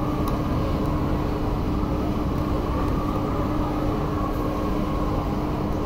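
Steady mechanical drone of a running machine, with a constant low hum that stays at one pitch throughout.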